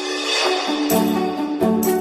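Outro music: held tones swell up, then a beat with regular percussion hits comes in about a second in.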